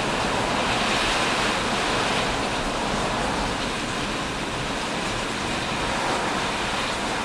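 Strong thunderstorm wind gusting: a steady rushing noise that swells slightly and eases, with wind striking the microphone.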